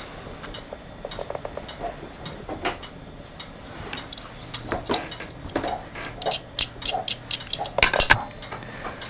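Small sharp clicks and light clinks from fingers handling the electric blanket control unit's switch and circuit board. They are scattered at first, then a quick run of about five clicks a second comes near the end.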